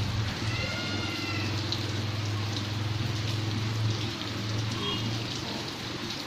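Steady rain falling and dripping on surfaces, over a steady low hum. About half a second in, a brief high call with a slightly falling pitch lasts about a second, and a shorter faint one follows near the end.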